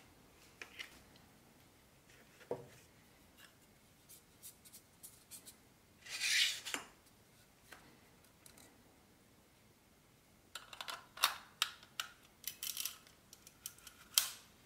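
Handling noise from a Commlite EF-to-E-mount lens adapter and a Canon EF 50mm lens: scattered light taps and a brief scrape about six seconds in, then a run of quick metal clicks and scrapes near the end as the lens is fitted and twisted onto the adapter's bayonet mount.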